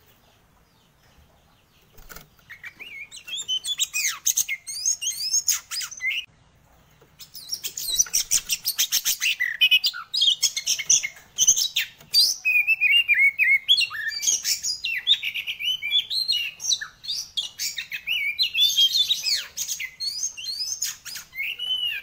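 Oriental magpie-robin (kacer) in full, loud song: a rapid, varied run of gliding whistles, chirps and fast trills. It starts about two seconds in, pauses briefly around six seconds, then sings on without a break.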